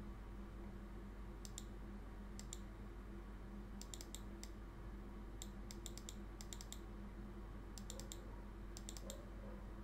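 Faint clicks from a computer keyboard and mouse, coming in short clusters of a few at a time, over a steady low hum.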